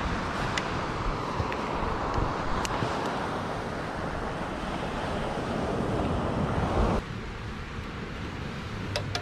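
Wind buffeting the microphone over surf on a beach, with a few light clicks. The noise drops suddenly about seven seconds in.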